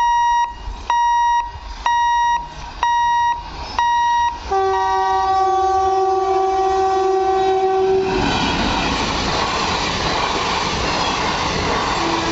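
Electronic warning beeps, about one a second, stop about four seconds in. An electric locomotive's horn then sounds one steady blast of about three and a half seconds as it approaches. An Intercity Express passenger train then runs by, its coaches rumbling and clattering over the rails.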